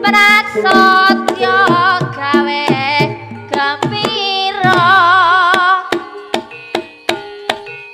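Javanese Ponorogo-style gending: a high melody line with a wide wavering vibrato over kendang drum strokes and ringing metallophone tones. About six seconds in the melody drops out, leaving the kendang strokes and gamelan tones.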